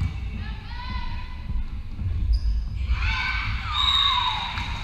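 Volleyball players' high voices shouting and calling out together in a large, echoing sports hall, starting about three seconds in, over thuds of feet and ball on the wooden court.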